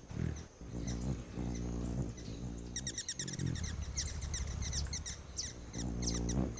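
Male Anna's hummingbird singing: a rapid series of short, high chirping notes that starts about three seconds in, over a low steady hum.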